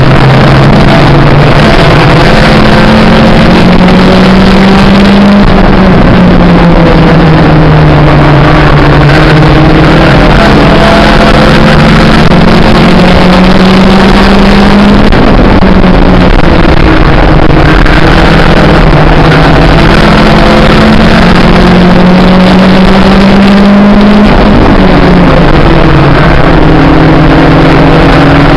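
Mini stock race car engine heard from inside the cabin under racing load, very loud, its revs repeatedly climbing and then dropping back every few seconds.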